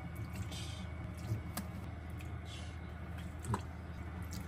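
Soy sauce and then a clear seasoning poured from bottles onto raw chicken pieces in a stainless steel bowl: faint trickling, with a few light clicks of bottle and bowl. A steady low hum runs underneath.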